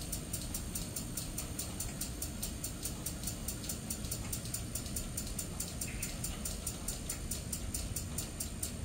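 Low, steady rumble of a freight train of tank cars at a street crossing, with a fast, even, high-pitched pulsing over it, about five beats a second.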